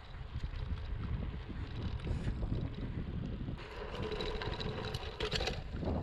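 Wind buffeting the microphone of a chest-mounted action camera during a bicycle ride, a steady low rumble. About halfway through, a louder, higher-pitched sound joins in for about two seconds.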